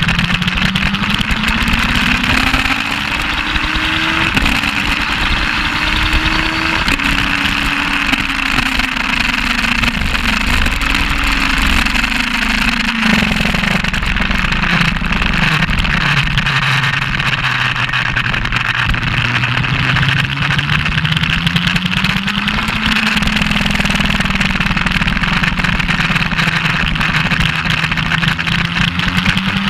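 Suzuki GS1200SS air-cooled inline-four engine under way on track, heard from on the bike: its pitch climbs with upshifts about four and seven seconds in, drops around twelve seconds as the rider eases off, stays low for a few seconds, then climbs again and holds steady near the end. Steady wind rush on the microphone under the engine note.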